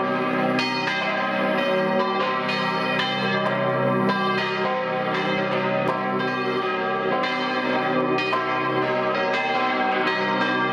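A full peal of several church bells, strokes falling a few times a second in an overlapping, irregular sequence, each tone ringing on under the next.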